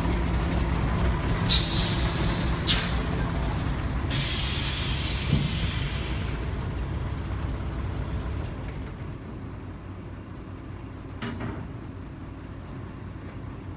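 A vehicle engine running steadily, with short hisses of released air and then a longer hiss lasting a couple of seconds; the engine sound slowly fades, and a single sharp click comes near the end.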